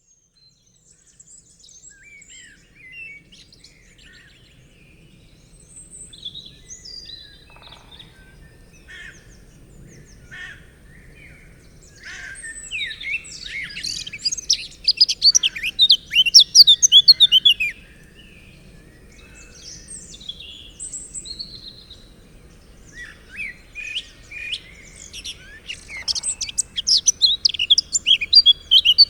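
Forest ambience of several birds singing and calling, scattered whistles and chirps, with two long stretches of loud, rapid song from a nearby bird, one about midway and one near the end, over a faint low rumble.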